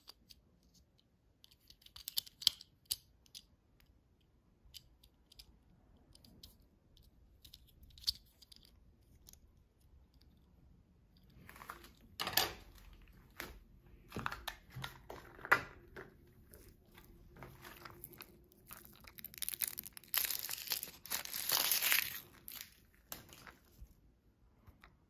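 A few light plastic clicks as small toy pieces are snapped together, then foil wrapper crinkling and tearing as it is peeled off a chocolate surprise egg, loudest near the end.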